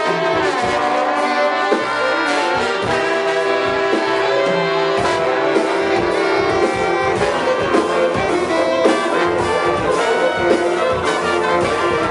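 An ensemble playing music led by brass instruments, with sustained horn notes over frequent percussive hits.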